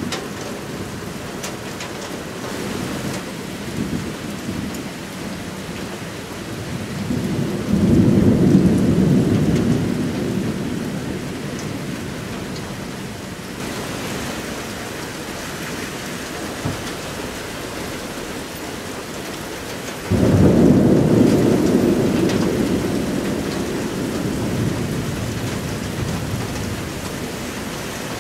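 Thunder rumbling twice over steady rain: one long rumble builds up about a third of the way in, and a second starts suddenly about two-thirds of the way in, each fading slowly.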